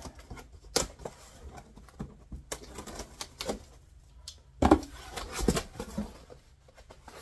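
A knife slitting packing tape on a cardboard box, then the cardboard flaps being pulled open with scattered scrapes and rustles. A dull thump of cardboard about four and a half seconds in is the loudest sound.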